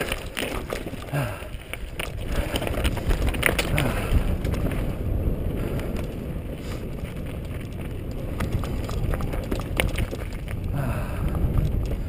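Mountain bike riding downhill: tyres rolling over rock with many sharp rattles and knocks from the bike in the first few seconds, then a steadier rumble of tyres on packed dirt, with wind on the microphone.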